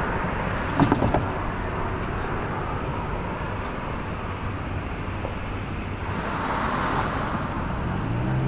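Street traffic noise from cars passing on the road: a steady roadway hiss that swells about six seconds in as a vehicle goes by. A few sharp knocks come about a second in, and near the end a low steady hum rises into place.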